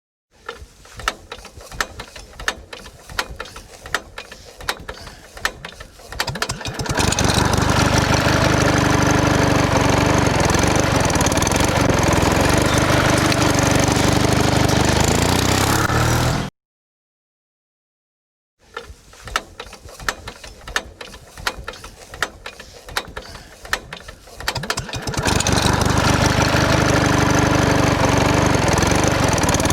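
Scattered clicks and knocks for about six seconds, then a small engine running steadily and loudly, its pitch wavering slightly. The sound cuts out abruptly, and after a couple of seconds of silence the same clicks-then-engine sequence plays again.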